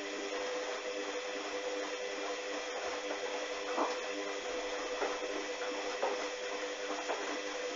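Hoover washing machine running a duvet wash, a steady motor hum with soft swishes from the drum about once a second in the second half.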